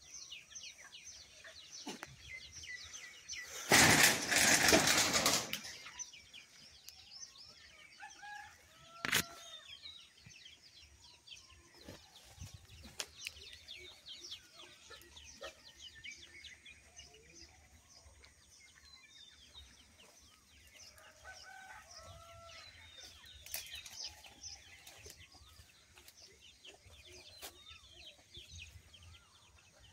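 Outdoor ambience of birds chirping and calling, with a loud rustling noise lasting about two seconds, about four seconds in, and a single sharp click near nine seconds.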